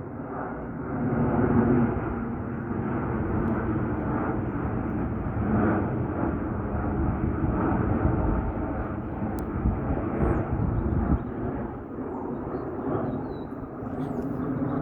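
Boeing 737-800 airliner flying past, its twin jet engines making a steady rushing noise.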